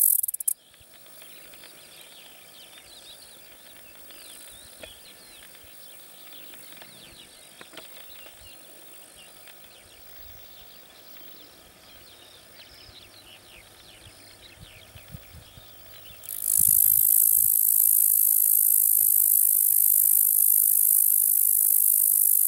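Bradyporus dasypus bush-cricket stridulating: a loud, steady, high-pitched hiss that stops abruptly half a second in and starts again just as suddenly about 16 seconds in. In the quiet gap between, only faint chirps and a few soft knocks are heard.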